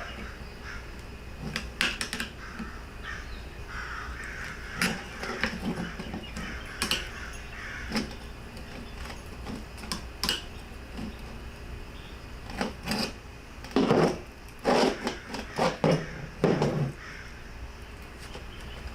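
Screwdriver clicking and scraping against the metal vent window frame as the clips of the old weatherstripping are pried loose and the rubber is pulled through. About fourteen seconds in comes a run of loud, harsh squawks lasting a few seconds.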